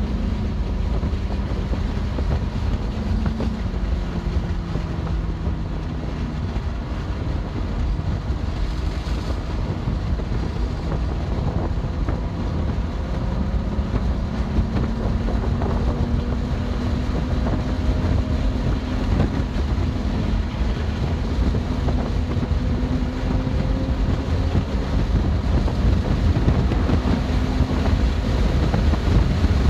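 BMW M2 Competition's twin-turbo inline-six at speed on track, over heavy wind and road rumble. The engine's pitch falls over the first several seconds, climbs slowly through a long pull for over ten seconds, then dips near the end and rises again as it comes back on the throttle.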